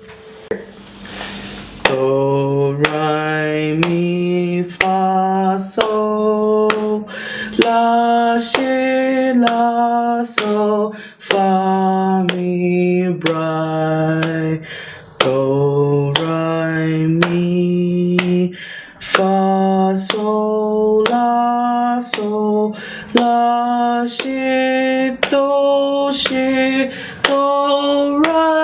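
A male voice sight-singing a melody note by note, each pitch held steady for about half a second to a second and begun with a crisp onset, with short breaks between notes. A soft hiss comes before the singing starts, about two seconds in.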